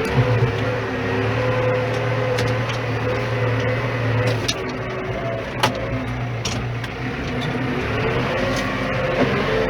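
Tractor engine running, with a whine whose pitch drifts up and down as the load changes, and a few sharp knocks, the loudest just past halfway.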